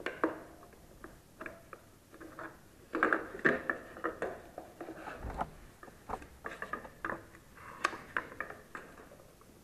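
Scattered light clicks, clinks and scrapes of a spanner and clamp being handled against the top nut and plate of an old scooter front shock absorber, busiest about three seconds in and again from about six to eight seconds in.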